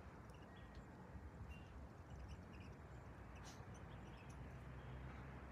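Near silence: the faint low rumble of a twin-engine Boeing 787-8 airliner passing high overhead at cruising altitude, with a few faint high chirps.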